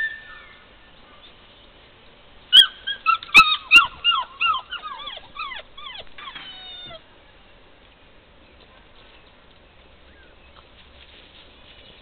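A puppy giving a quick run of about a dozen short, high yelps and whimpers, each falling in pitch. A few sharp clicks come among the first yelps, and the run stops about seven seconds in.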